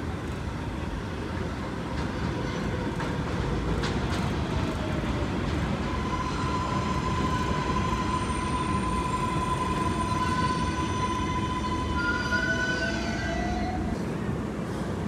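New York City Subway 4 train of R142-type cars pulling into an elevated station: a steady rumble of wheels on the rails, a long high squeal through the middle, and whining tones that glide in pitch near the end.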